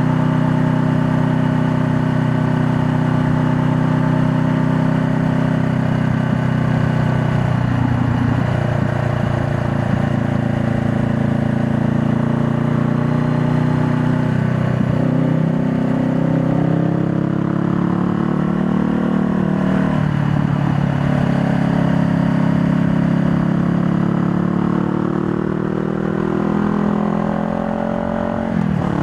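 2020 Honda Rebel 500's parallel-twin engine running while riding, its note dipping and climbing again several times.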